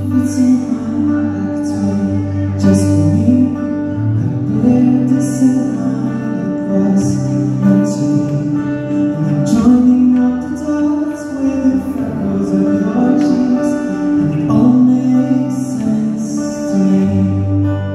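Live pop ballad: a male singer sings into a microphone over an amplified backing track with a steady bass line, heard through a theatre's PA.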